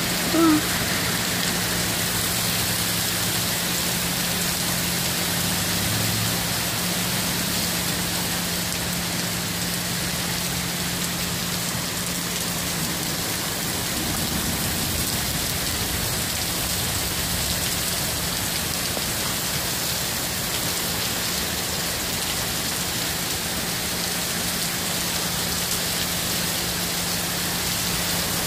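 Heavy rain pouring steadily onto wet pavement, an even unbroken hiss, with a steady low hum underneath.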